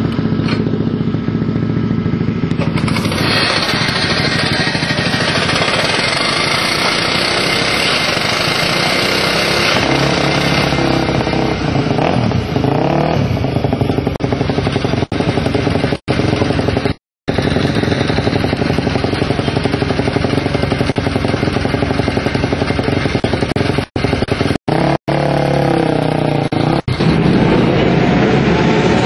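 426cc single-cylinder Minimono race bike engine running loud at a raised idle, revved up and back down about twelve seconds in and again near the end.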